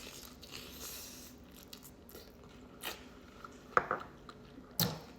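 Close-up mouth sounds of someone biting and chewing quesabirria tacos, with a few sharp crunchy clicks, the loudest about four and five seconds in.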